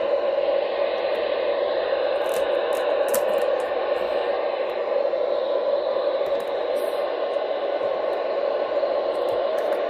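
Weather radio receiver hissing with steady static and faint crackles as it barely picks up a weak weather radio signal.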